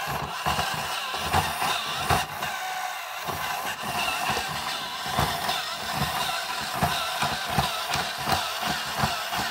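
Insect-a-zoid toy robot's electric motor and gear train running as it walks on a wooden floor: a steady whirr with regular knocks from its plastic legs, about three a second. The gears run without rubbing, the pinion gears moved up their motor shafts clear of the crown gear.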